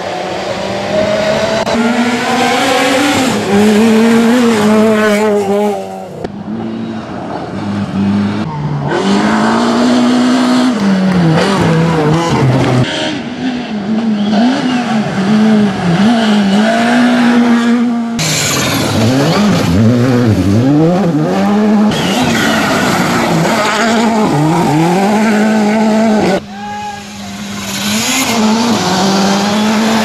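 Rally cars at full speed on gravel stages, one after another: engines revving up and dropping back with each gear change, over the noise of tyres sliding and spraying gravel. The sound changes abruptly several times as one car gives way to the next.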